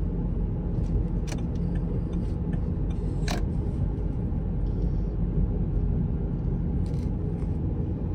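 Car driving along a road, heard from inside the cabin: a steady low rumble of road and engine noise, with a few brief clicks.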